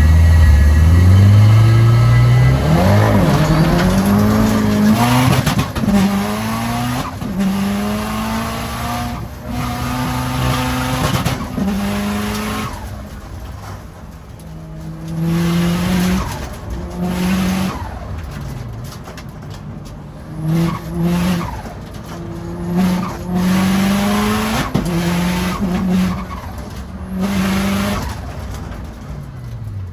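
Subaru WRX STI's turbocharged flat-four engine accelerating hard through the gears, running at medium boost. Its pitch climbs and drops at each gear change, loudest at the start, then grows fainter with short bursts of throttle later on.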